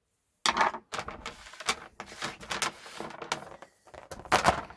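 Plastic MC4 solar connector and cable being handled and pushed together by hand: a run of irregular clicks and scraping rasps, loudest a little after four seconds in.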